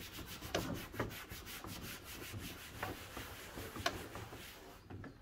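Abrasive Scotch pad scrubbed back and forth over the textured plastic of a van's front bumper, a quick run of scratchy rubbing strokes that keys the surface ready for trim dye. The rubbing fades out just before the end.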